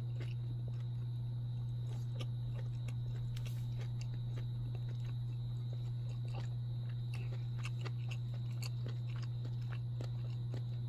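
A steady low hum throughout, with faint, scattered clicks of a person chewing a bite of smoked beef sausage.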